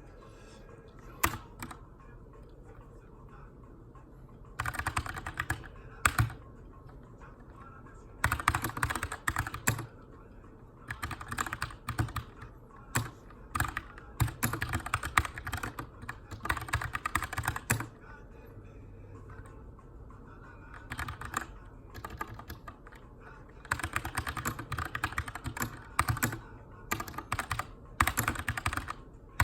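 Typing on a Keychron K2 mechanical keyboard with brown (tactile) switches in an aluminum frame: runs of rapid keystrokes lasting a few seconds each, separated by pauses with only an occasional single click.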